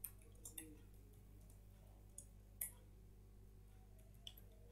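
A few faint, scattered clicks of computer keyboard keys being typed, over a steady low hum.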